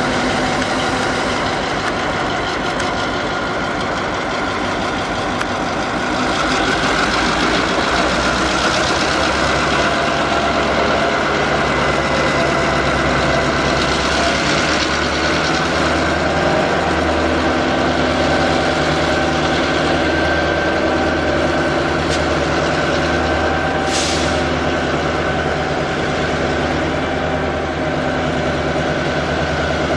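Diesel locomotive engine idling steadily, with a brief high hiss about 24 seconds in.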